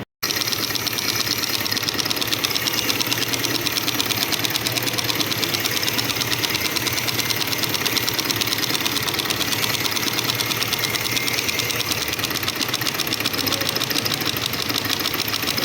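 Shineray motorcycle engine running with a fast, steady metallic ticking from the clutch, the 'tec, tec, tec' of clutch discs whose worn teeth have play where they grip the hub and knock.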